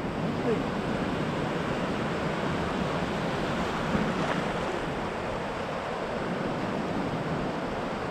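Steady wash of ocean surf breaking and running up the shallows, with wind on the microphone.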